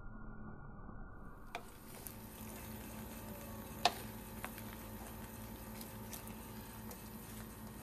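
Fried rice and mustard greens being stirred in a wok with a wooden spatula and a fork, with a faint sizzle under a few sharp clicks of the utensils against the pan, the loudest about four seconds in.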